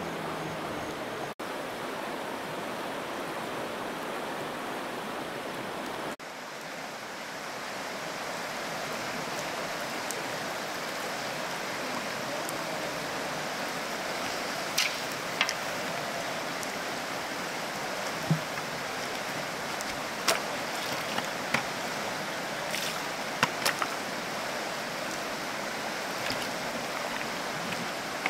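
Steady rush of running stream water. In the second half come a dozen or so short, sharp clicks and knocks, two or three close together at a time.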